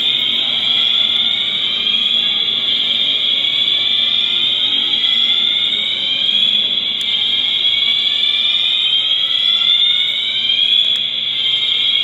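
Mall fire alarm system sounding continuously, a shrill high-pitched tone with no breaks.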